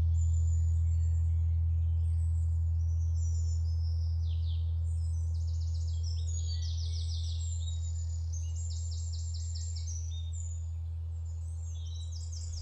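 A low steady drone that slowly fades, with birds chirping and trilling above it.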